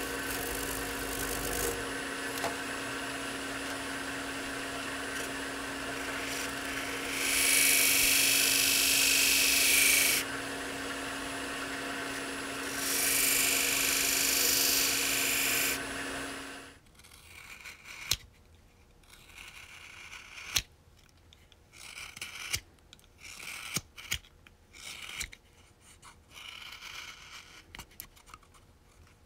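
Powered sharpening wheel of a Nora Hall sharpening system running at a steady hum (1,500 rpm). Twice, for about three seconds each, a loud hiss comes as a small carving knife's blade is held against the paste-charged wheel. About two-thirds of the way in the hum cuts off, and short, sparse crisp cuts follow as the freshly sharpened knife slices end-grain poplar.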